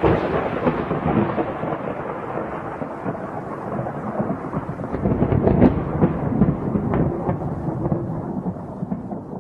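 Thunderstorm: rain falling with rolling thunder that swells to its loudest a little past halfway, with a sharp crack near the peak.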